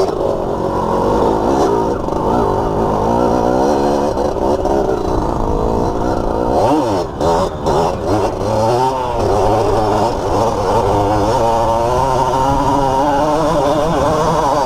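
Dirt bike engine revving, its pitch rising and falling repeatedly, with a few brief cuts of the throttle about seven to eight seconds in.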